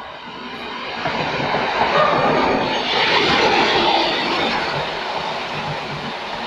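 Blue-and-yellow SKM suburban electric multiple unit approaching on the nearby track and running past. Its running and wheel-on-rail noise grows louder over the first two seconds and stays loud as the carriages go by.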